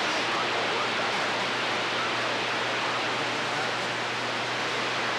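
CB radio receiver hiss: steady band static from the speaker between transmissions, with a low hum underneath.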